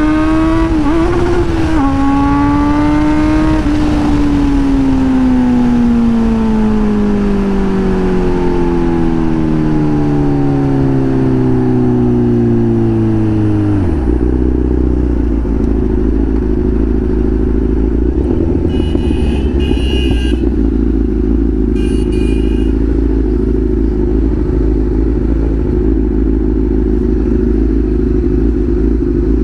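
Kawasaki Z900 inline-four through an SC-Project aftermarket exhaust, heard from the rider's seat. At high revs its note climbs briefly, then falls steadily for about ten seconds as the throttle is closed and the bike slows. About halfway through it drops suddenly to a steady idle rumble while the bike rolls to a stop.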